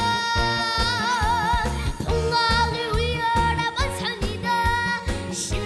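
A boy singing a trot song into a microphone, holding long notes with a wide vibrato, over a band accompaniment with a steady beat.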